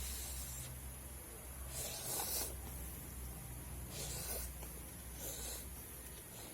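Four short airy mouth sounds while eating spicy instant noodles, the loudest about two seconds in.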